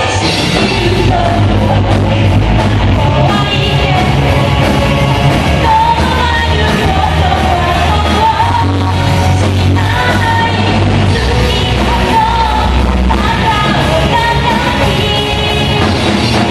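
Live rock band playing loud: a singer's voice over electric guitar, bass and drums, heard through the hall's PA.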